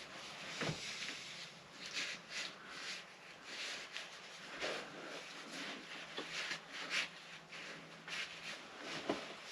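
Paper towels wiping and rubbing spilled two-stroke oil off a motorcycle engine, a string of short scrubbing strokes, with a soft knock just under a second in.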